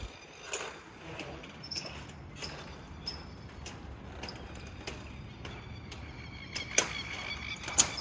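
Roller shutter garage door rolling up, a quiet rattle with scattered sharp clicks; the two loudest clicks come near the end.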